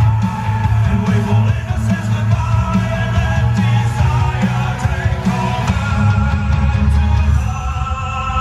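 Recorded dance music with a singing voice and strong bass, played loud through the hall's speakers.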